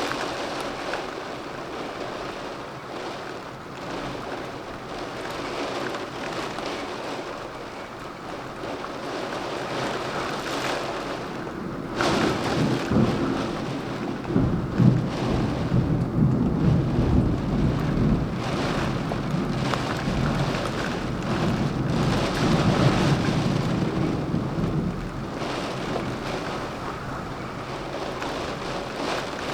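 Steady rain falling during a thunderstorm, with a long roll of thunder that breaks in about twelve seconds in and rumbles on for some ten seconds before fading.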